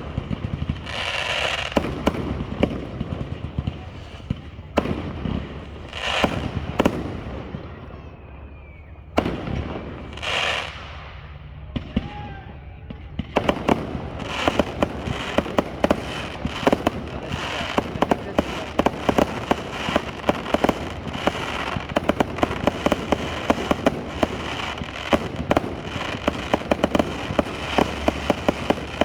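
Fireworks display: separate aerial shell bursts bang every second or two, then about halfway through a dense run of rapid crackling cracks takes over.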